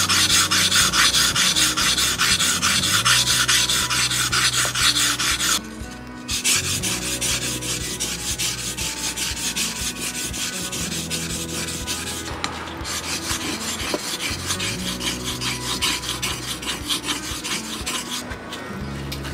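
A blade from old hand-forged Shozaburo tailor's shears being stroked back and forth on wet whetstones, a rhythmic wet scraping. It comes in three stretches with short pauses as the blade moves from a coarse stone to a medium stone and then to a finer medium-finishing stone. It is loudest on the coarse stone.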